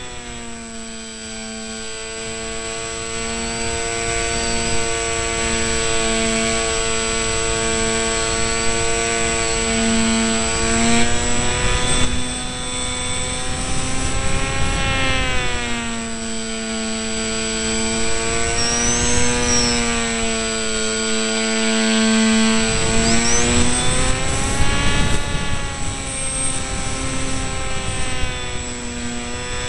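Electric motor and propeller of an RC delta-wing model whining steadily over a rushing noise, the pitch dipping and rising again several times, with a thin high steady whine above it.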